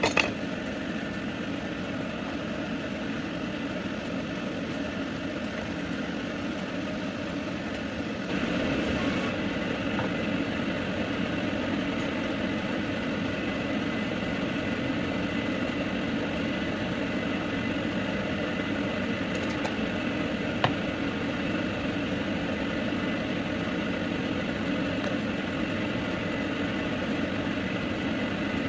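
Steady mechanical hum, growing a little louder about eight seconds in, with a sharp click at the start and a single tick about twenty seconds in.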